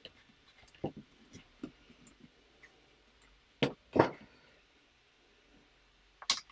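Plastic LEGO bricks clicking and rattling as small pieces are handled and pressed onto a model car: scattered light clicks at first, two louder knocks about halfway through, and a quick pair of clicks near the end.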